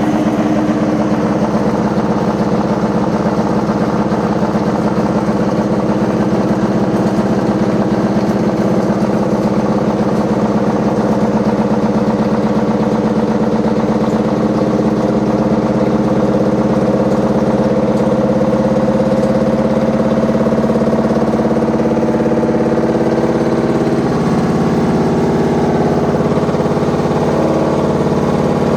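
Washing machine running noisily: a loud, steady mechanical din with a droning hum that shifts slightly about 24 seconds in, sounding like a load of bricks in the drum.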